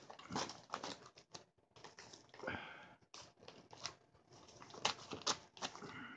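Scissors snipping into the plastic wrapping of a parcel, with irregular faint clicks of the blades and crinkling of the plastic as it is cut and pulled back.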